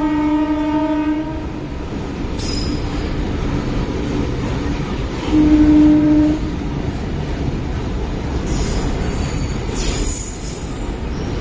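Horn of a WAG-9HC electric locomotive: a blast that ends about a second in and a second short blast around the middle. Under it runs the steady loud rumble and clatter of the passing container freight train's wheels.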